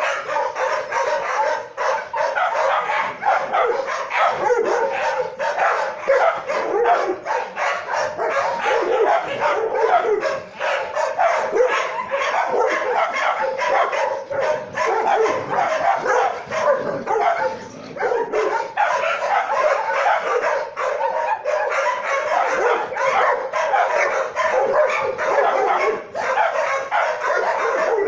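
Dogs barking and yipping without a break: a dense run of overlapping short, sharp calls.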